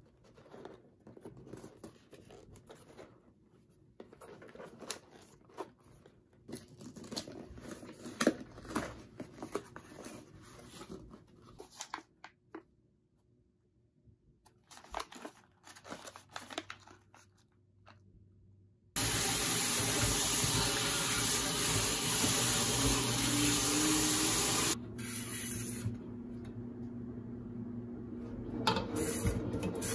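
Cardboard box and paper packing being opened and handled: tearing, crinkling and scattered rustles. About two-thirds of the way through, a loud steady rushing noise starts suddenly and lasts about six seconds, then drops to a softer hiss with a few knocks near the end.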